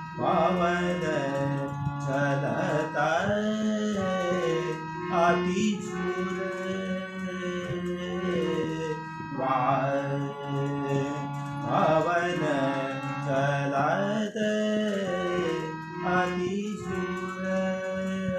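Devotional song: a voice singing an ornamented melody over a steady held instrumental drone, with a light percussion accompaniment.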